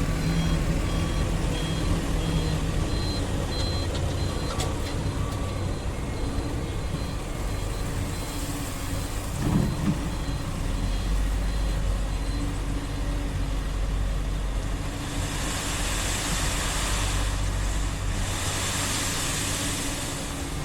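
Heavy diesel excavator engines running steadily, with an electronic warning alarm beeping repeatedly for the first four seconds or so. Later a hissing rush comes and goes twice.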